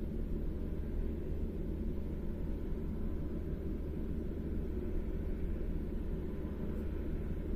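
Steady low rumble and hum of running industrial plant machinery, with no distinct tool strikes or clicks.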